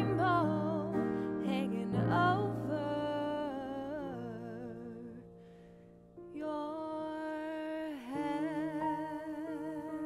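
Female voice singing long held notes with vibrato over instrumental accompaniment at the end of a musical theatre song; the sound fades almost away about five seconds in, then another long sustained note comes in and holds.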